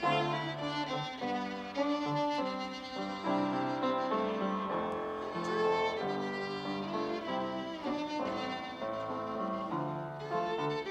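Music: a violin playing a melody over instrumental accompaniment.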